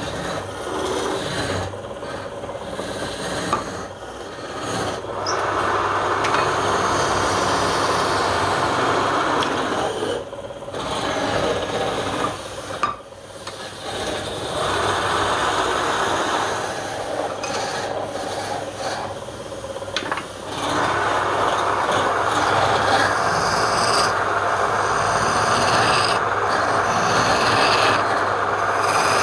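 Wood lathe running with a tool held against the spinning wood: a steady scraping noise that breaks off briefly several times as the tool comes away, over the low hum of the lathe.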